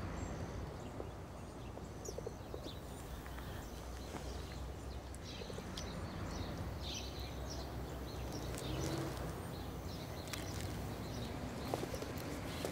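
Outdoor street ambience: a steady low rumble with scattered short, high chirps and a few faint clicks.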